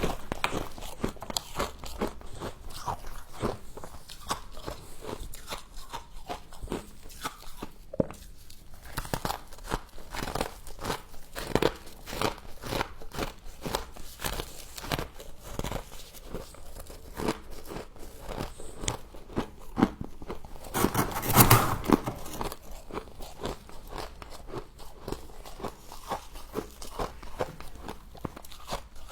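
A person biting and chewing humidifier frost in dense, irregular crackly crunches, with a louder bite about two-thirds of the way through.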